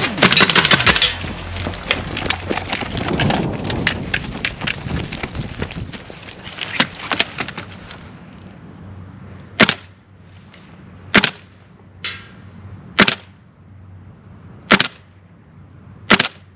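Gas blowback airsoft rifle firing: a quick run of shots over the first several seconds, then about five single shots, each a second and a half to two seconds apart, the last two close together.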